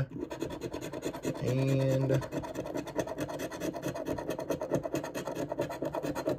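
A large metal coin scratching the coating off a lottery scratch-off ticket: a quick, continuous run of short rasping strokes, many a second.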